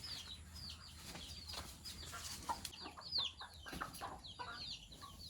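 Chickens calling: many short, high, falling peeps in quick succession, with a sharp tap about three seconds in.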